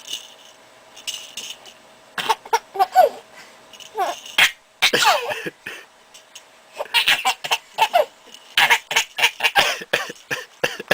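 A baby laughing in several excited bouts of quick, high-pitched bursts, some of them squealing downward in pitch, with short pauses between.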